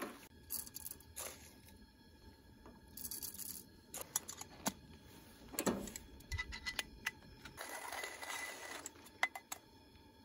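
Handling of coffee-making gear, a metal coffee can and a stainless steel hand coffee grinder: scattered light clinks, taps and short scraping rustles, with a longer rustle about eight seconds in.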